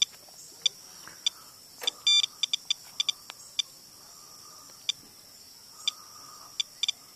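Geiger counter giving short, high-pitched beeps at irregular random intervals, roughly two a second, as it counts radiation in rainwater. The owner reads the count as about six to eight times his normal background.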